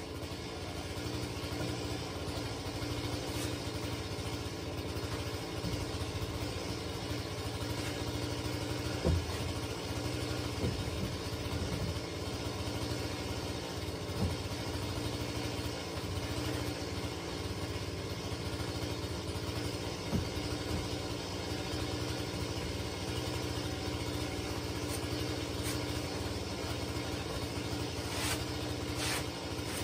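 A small engine running steadily at idle, with a few short wooden knocks as boards are handled.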